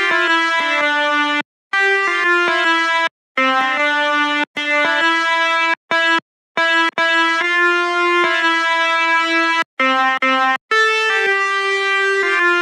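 A melody played note by note in the reedy, horn-like tone of an Indonesian basuri 'telolet' bus horn on a keyboard. The notes start and stop cleanly, and the tune breaks off in several short silences between phrases.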